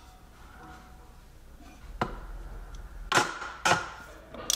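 Sharp metallic clicks and knocks from hand tools, a ratchet with a long extension and 27 mm socket, as they are fitted onto the oil filter housing cap to loosen it. There are four separate clicks: one about two seconds in and three close together near the end.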